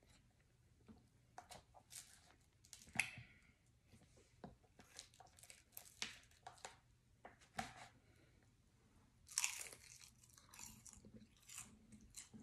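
A person chewing and crunching crispy food close to the microphone: quiet, irregular crisp bites and crackles, with the loudest run about nine and a half seconds in.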